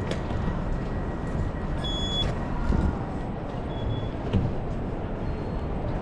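Busy city street noise beside a stopped light-rail tram: a steady low rumble with wind buffeting the microphone. A few short high beeps sound, the clearest about two seconds in.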